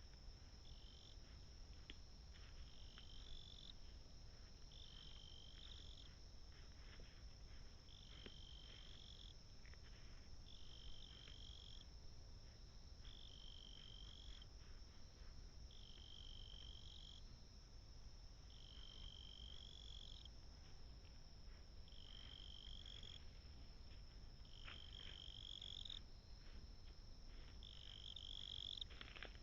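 Faint outdoor animal calling: a short high trill about a second long, repeated every two seconds or so, over a thin steady high-pitched insect-like drone.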